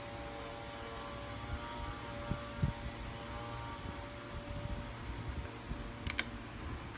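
Steady mechanical hum with a few faint steady tones, low scattered bumps, and one sharp click about six seconds in.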